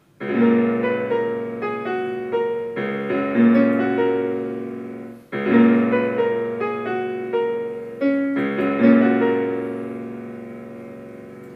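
Casio digital keyboard played with a piano voice: a slow melody over held chords in short phrases, the last chord left to ring and fade. Picked up through a wired headphone's inline microphone about a metre from the keyboard's speaker.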